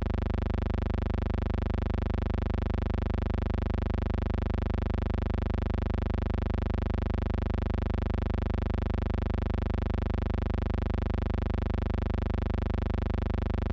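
A steady, unchanging electrical buzz, one fixed pitch with its overtones, with no other sound over it.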